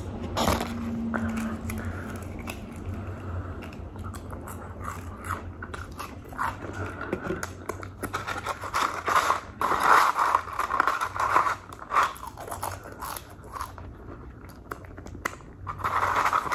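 Close-up chewing and crunching of fried onion rings and fries, with irregular wet mouth and lip sounds.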